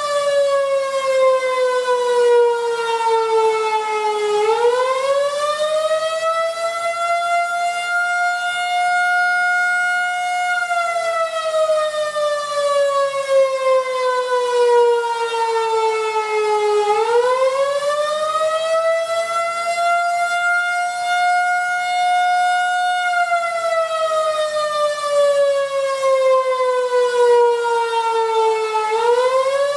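Outdoor warning sirens sounding the wail signal of a tornado-warning activation. The pitch slides slowly down for about six seconds, sweeps back up over three or four seconds and holds briefly at the top, then slides down again, twice through the cycle.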